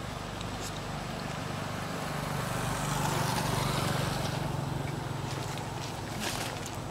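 A motorbike engine passing by on the road, its steady hum growing louder to a peak about halfway through and then fading away. A short tap sounds near the end.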